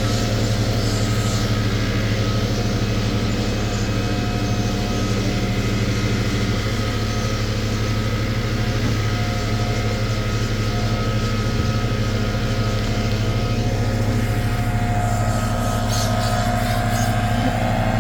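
Truck engine idling steadily, with an even low hum.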